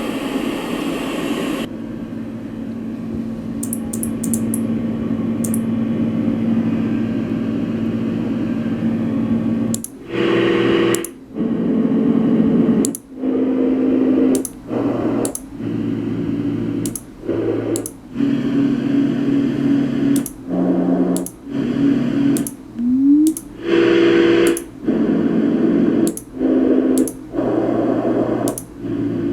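LectroFan white noise machine playing its fan and white-noise sounds. One steady sound runs for about ten seconds, then the machine steps from one sound to the next about once a second, each change marked by a brief gap and a faint click.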